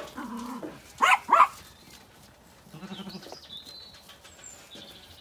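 Zwartbles sheep and lambs bleating, one call near the start and another about three seconds in, with two short, loud calls about a second in.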